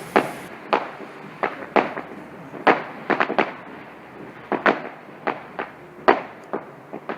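Fireworks going off: a rapid, irregular series of sharp bangs, some in quick clusters about three seconds in.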